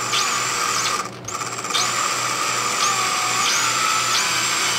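Electric hand drill with a tiny 1/16-inch bit drilling into a small steel shaper pawl pin, the motor whining steadily and started slow. Its pitch dips briefly several times, and the whine drops out for about half a second a little after one second in before running on.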